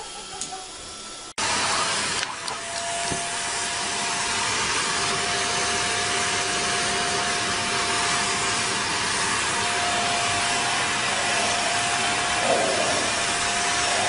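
Vacuum cleaner running steadily with a steady whine, starting abruptly about a second and a half in.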